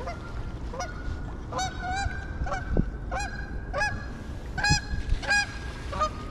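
Geese honking: a run of about ten short, pitched honks, one to two a second.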